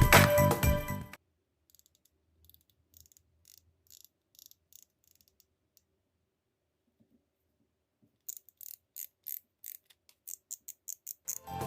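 Baitcasting reel making a run of small, sharp mechanical clicks, about four or five a second, as it is worked by hand, with a few fainter clicks earlier.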